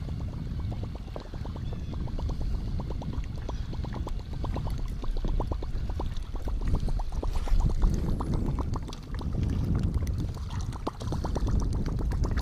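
Water lapping and gurgling against the boat's hull over a steady low rumble, with a quick run of small clicks through the first half or so.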